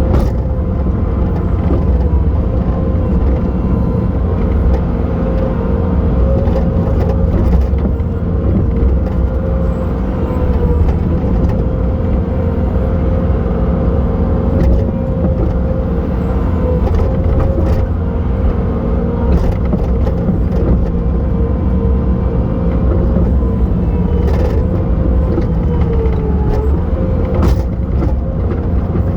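Bobcat T870 skid steer's diesel engine running steadily at working speed, with a steady whine over the rumble. The whine's pitch dips briefly near the end, as if the machine takes a load.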